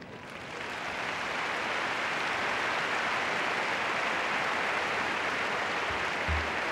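Large arena crowd breaking into applause after a gymnastics landing, building over the first second and then holding steady. A couple of dull low thumps near the end.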